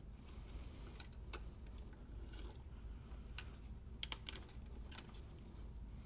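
Faint, scattered sharp clicks and snaps of a plastic zip tie being cut and wiring clips being handled with cutters, the clearest about three and four seconds in.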